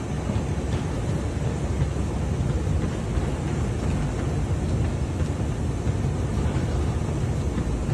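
Slat-type baggage carousel conveyor running, its overlapping slats travelling round the curve with a steady low rumble.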